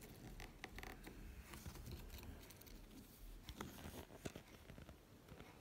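Faint, scattered clicks and short scratchy crackles over a near-silent hiss.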